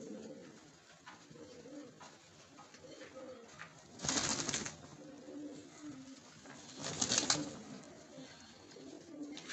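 Frillback pigeons cooing, a low repeated coo, with two short loud bursts of noise about four and seven seconds in.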